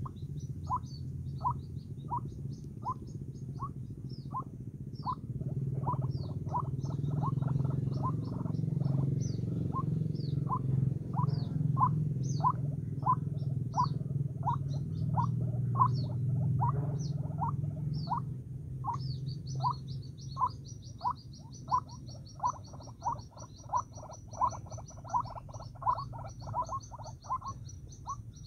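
White-breasted waterhen calling: a short, clipped note repeated about twice a second, quickening in places. Thin high chirps of another bird sound above it, over a steady low hum.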